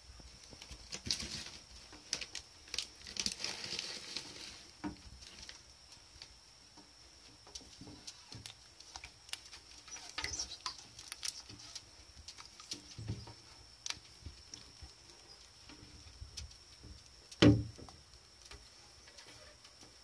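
Toad-headed turtles moving about in a plastic tank: scattered light taps and scrapes of claws and shells on the plastic, with one loud knock about three-quarters of the way through.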